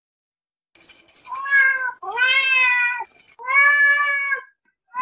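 Domestic cat meowing: three long meows in a row, the first rising and the last held level, with a high steady tone sounding over the first.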